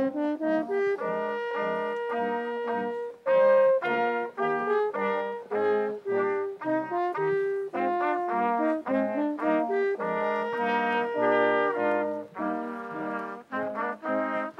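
Small live brass ensemble playing a processional in full chords, mixing short detached notes with longer held ones.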